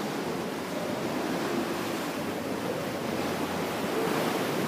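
Sea water sloshing and lapping against the rock walls at the mouth of a sea cave.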